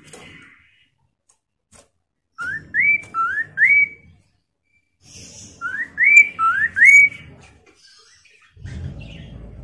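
Poksay Mandarin (chestnut-capped laughingthrush) whistling two phrases of three clear upslurred notes, each note sliding upward, with a pause between the phrases. A low rumble near the end.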